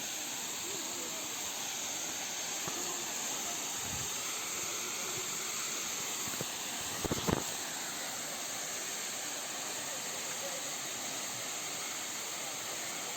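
Steady rushing hiss of a waterfall, with a brief sharp knock about seven seconds in.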